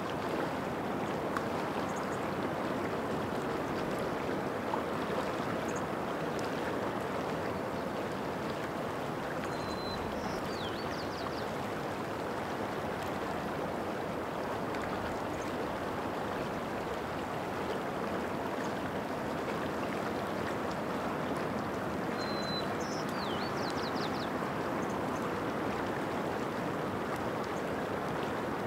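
Shallow mountain stream running over rocks, a steady rushing flow. A small bird calls twice over it, about ten seconds in and again a little past twenty seconds, each time a short high note followed by a few quick falling notes.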